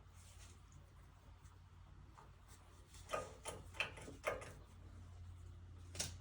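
A few light clicks and knocks, about four in quick succession midway and one more near the end, over a low steady hum.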